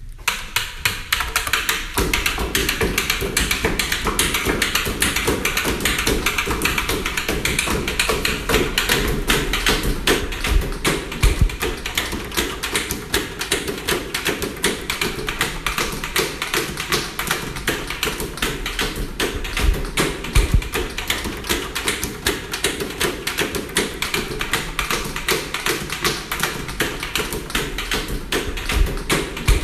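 Fingers drumming on a wooden desk: a rapid, even run of taps kept up as a rhythmic beat, with a few heavier low thuds.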